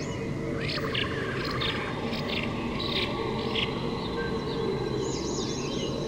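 Forest nature ambience: short bird or insect chirps repeated about six times in the first few seconds, then a wavering trilled birdcall near the end, over a steady low rush of creek water.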